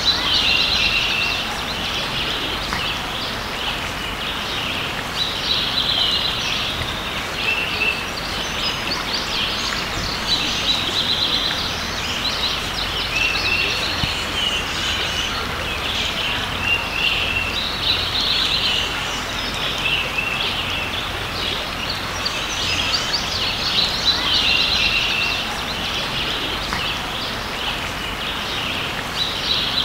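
Creek water running steadily, with songbirds singing short phrases every few seconds over it.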